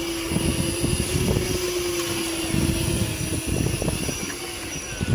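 Electric fishing reel's motor whining steadily as it winds up line from deep water, stopping about three and a half seconds in. Wind rumbles on the microphone throughout.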